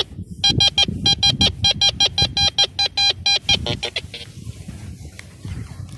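Tianxun TX-850 metal detector giving a rapid run of short, high beeps, about six a second, as the search coil passes over a buried target. The beeping stops a little after halfway. It is the detector's audio response to a clear, strong signal in the ground.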